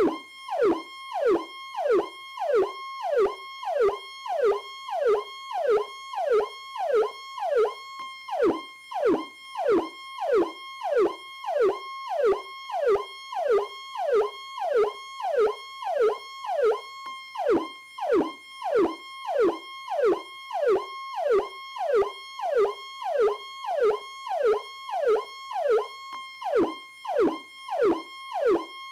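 Powercall electronic police siren sounding continuously: a rapid, repeating downward-falling wail, about three sweeps every two seconds, over a steady high held tone.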